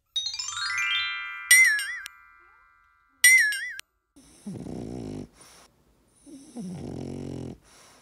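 A cartoon-style sound effect, a rising run of chime-like tones and two loud wobbling whistle tones, followed by a French bulldog snoring twice, each snore about a second long. The snoring is typical of the breed's short, narrow airway.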